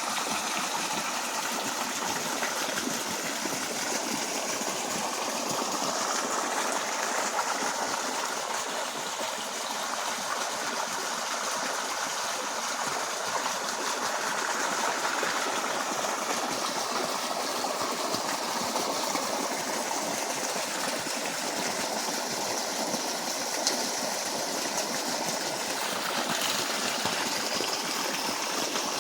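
Water flowing steadily with an even rushing sound, with one brief click about 24 seconds in.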